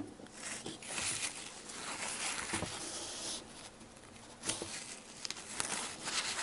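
Tissue paper rustling and crinkling as it is rubbed along a metal paint-stirring stick to wipe off enamel paint, in two stretches of soft rustle with a short pause between them.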